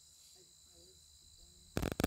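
Faint steady high-pitched drone of crickets, with a few faint short chirps in the first second and a half. Near the end a sudden loud crackling burst of noise cuts in.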